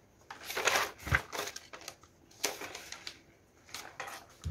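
Pages of a paper notebook being turned over by hand: several short rustles and flicks of paper, with a soft knock about a second in.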